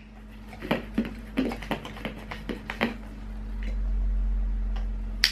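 A dog lapping at the mouth of a nearly empty buttermilk bottle, a quick run of short wet licks. A low rumble follows, and a single sharp dog-training clicker click marks the behaviour at the very end.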